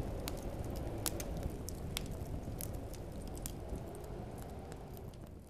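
Steady low rumbling noise with scattered sharp crackles and clicks, slowly fading out near the end.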